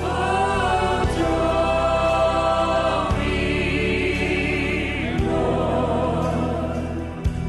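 Choir and congregation singing a slow gospel worship chorus in long held notes with vibrato, over steady instrumental accompaniment.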